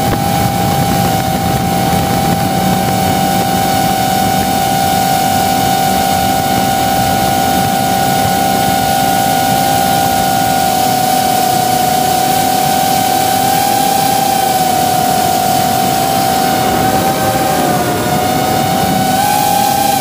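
A 3-inch FPV racing drone's brushless motors and propellers whine steadily in flight, heard up close from the camera on the drone itself. The pitch dips briefly and climbs back near the end.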